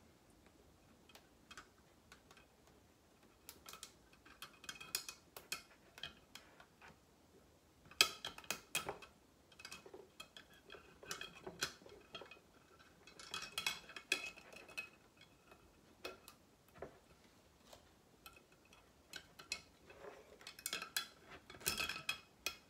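Thin metal electrolysis wires clinking and tapping as they are handled and adjusted, in irregular clusters of light clicks, the loudest about a third of the way in.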